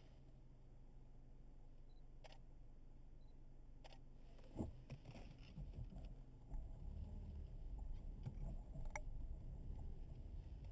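Low rumble of a car heard from inside the cabin, growing louder after about six seconds as the car moves along the road. A few sharp clicks are heard over it, three in all.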